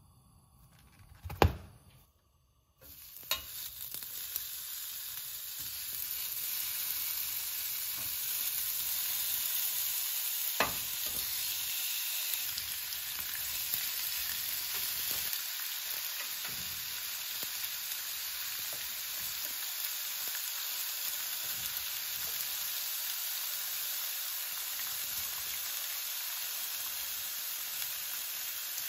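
A single sharp knock about a second in, then food sizzling steadily in a hot frying pan.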